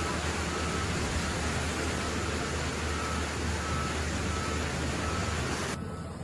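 A loud steady hiss that cuts off suddenly near the end, over a low engine hum and a vehicle's reversing alarm beeping at a regular pace.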